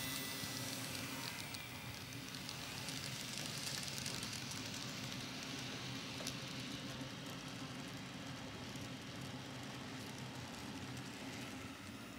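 N scale model train rolling past on the track: a steady crackling rattle of small metal wheels on the rails with faint fine clicks, over a low hum.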